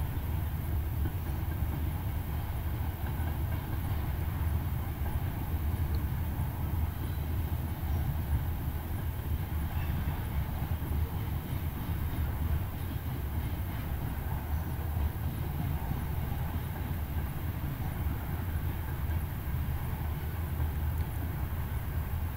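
Freight train of covered grain hopper cars rolling past at a distance, a steady low rumble.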